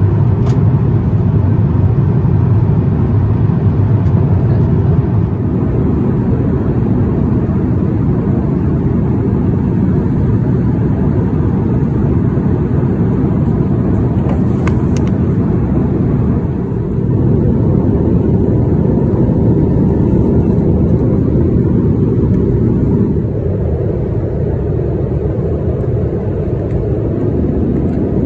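Steady low cruise roar inside an Airbus A350-900 airliner cabin, airflow and engine noise at altitude, shifting slightly in level a few times.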